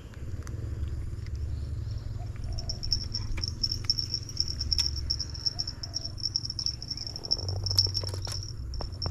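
An insect's high, rapidly pulsing trill starts about two and a half seconds in and carries on over a low rumble. A cluster of sharp clicks and rustles comes near the end.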